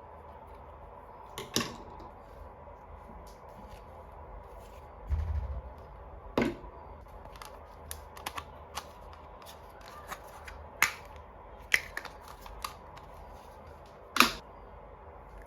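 Scattered sharp clicks and taps from small plastic toy pieces and packaging being handled, about a dozen in all and irregularly spaced, with a duller thump about five seconds in.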